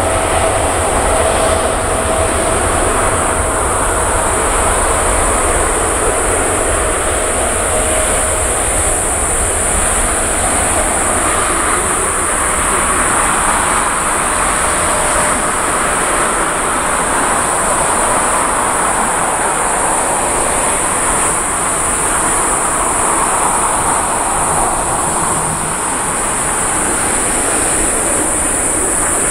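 Boeing 787-10 airliner's twin jet engines at taxi power: a steady rumble as the aircraft taxis past, with a constant high-pitched hiss above it.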